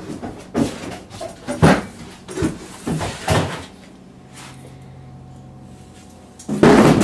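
Several sharp knocks and clatters, like things being banged and rustled about, over the first three and a half seconds, then a faint steady low hum, then a loud clattering burst near the end.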